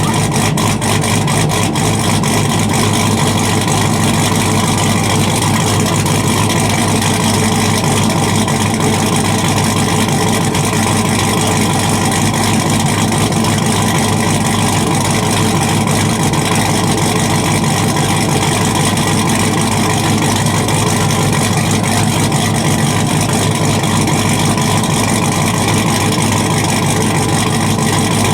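Cammed 5.3-litre V8 in a Chevy Tahoe idling steadily through a 3.5-inch straight-piped exhaust with the muffler deleted; loud, with no revving.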